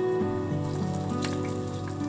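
Background music of sustained instrumental notes, changing pitch every half second or so, with a few faint clicks.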